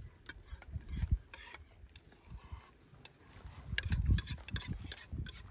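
Metal spoons clicking and scraping against plates and bowls during a meal, in irregular clicks. Low thumps come about a second in and again about four seconds in.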